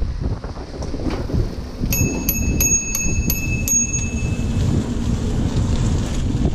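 Bicycle bell rung six times in quick succession, about three rings a second, starting about two seconds in. Steady wind noise on the microphone runs underneath.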